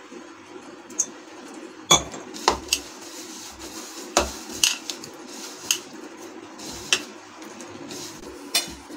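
Flour dough being kneaded by hand in a ceramic mixing bowl, with about nine sharp, irregular clinks and knocks against the bowl over a steady low hum.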